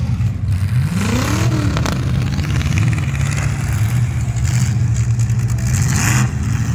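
Demolition derby cars' engines running and revving. One rev rises and falls about a second in.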